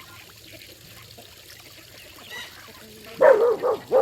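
Dog barking, a short run of loud barks starting about three seconds in, over the faint trickle of running water.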